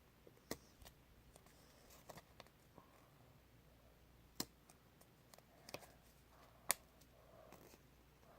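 Scattered small clicks and taps from handling craft materials while making a squishy, a handful of separate sharp ticks over a quiet background, the loudest about two-thirds of the way in.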